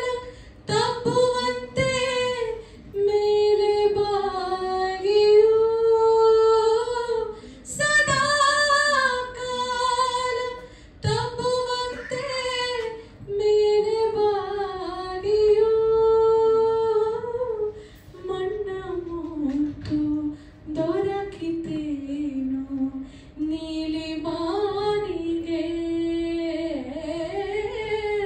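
A woman singing a Kannada song solo into a microphone, unaccompanied, in long held notes that bend and slide between pitches, with short breath pauses between phrases.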